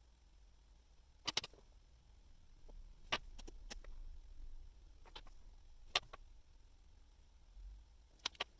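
A handful of faint, sharp clicks of small metal watchmaking tools handled at the bench, spaced a second or two apart, two of them coming in quick pairs.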